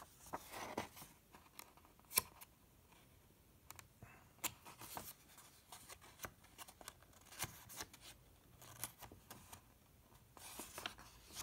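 Paper pages of a picture book being handled and turned: faint, scattered rustles, rubs and light taps, a little louder a couple of times and again near the end.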